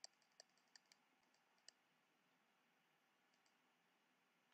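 Near silence with faint computer mouse clicks: a quick run of them in the first second and a half, then two more a little before the end.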